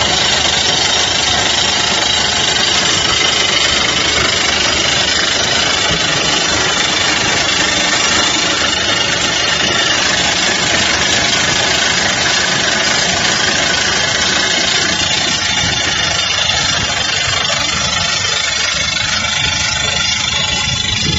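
ProDrill PD-90 excavator-mounted rock drill drilling into rock: a loud, steady machine noise from the drill and the excavator's engine, with no let-up.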